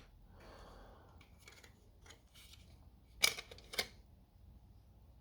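Handling of a new cordless jigsaw: faint rustling and a few light clicks, then two sharp clicks about half a second apart near the end, like a lever or part of the tool snapping into place.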